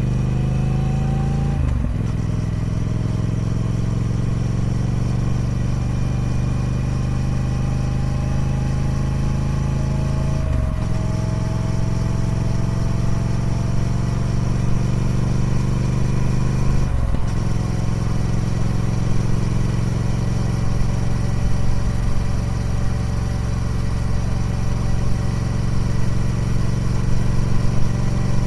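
Triumph Speed Twin 1200's parallel-twin engine through its stock exhaust, under way: the engine note climbs slowly, with three brief breaks where it drops back as the rider shifts up a gear.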